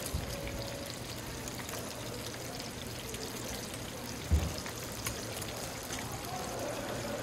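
Battered shrimp deep-frying in a large round pan of hot oil, a steady sizzle. There is one low thump a little past the middle.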